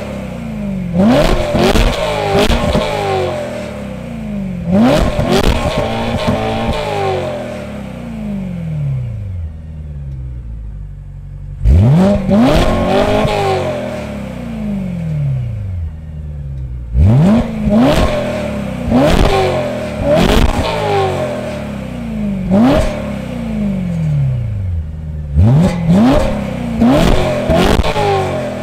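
BMW E92 M3's S65 V8 through an M Performance exhaust, revved in about a dozen sharp throttle blips, in pairs and short runs. Each blip rises quickly and falls back to idle, with a longer stretch at idle about a third of the way through. Heard at the quad tailpipes.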